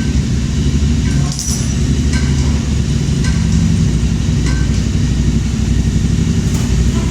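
Motorcycle engine running steadily at idle, with a few light clicks over it.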